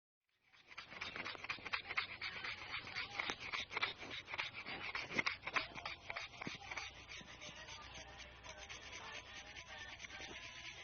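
Rapid abrasive rubbing and scraping strokes from a hand sharpening or shaping tool working steel or wood, starting about half a second in. The strokes are dense and sharp at first and ease into steadier, softer rubbing near the end.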